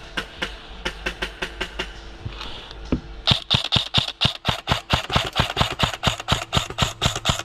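Airsoft gun firing rapid shots, about six a second, as a string of sharp clicks. There is a short pause about two seconds in, then a longer, louder string.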